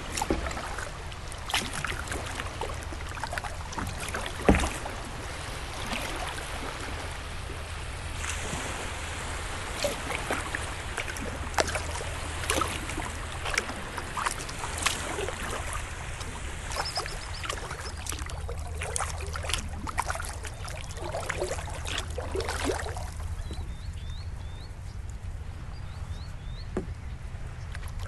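Kayak paddling: the paddle blades dip and splash, and water drips off them, stroke after stroke, with one sharper knock about four and a half seconds in.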